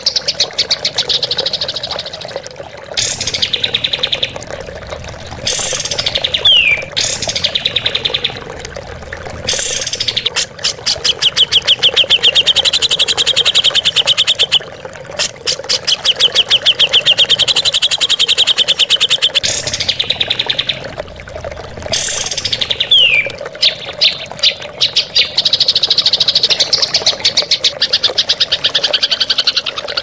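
Songbirds delivering long, very fast rattling trills (the 'tembakan' style prized in cage-bird song), broken by short gaps, with a quick downward-sweeping whistle twice.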